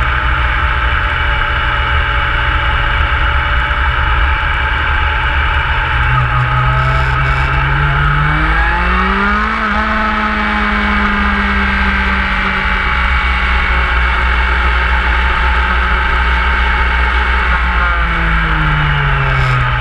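Motorcycle engine running while riding. Its note rises about halfway through as it speeds up, holds steady, then drops again near the end.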